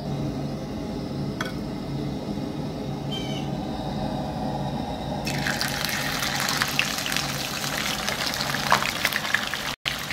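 A low steady hum, then about five seconds in, hot oil starts sizzling and crackling loudly as a piece of snapper is lowered into the frying pan, and it keeps sizzling.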